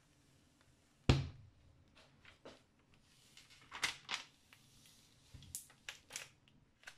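Clear protective film being peeled off a drawing tablet's screen: a run of crackles and snaps as the plastic comes away, the loudest about a second in.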